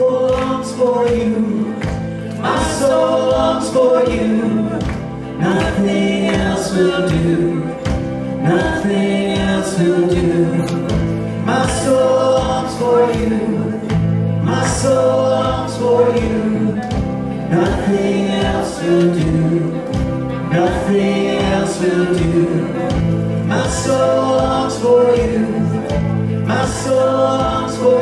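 Live worship music: a band with electric guitar and keyboard and several male and female singers performing a gospel song over a steady beat.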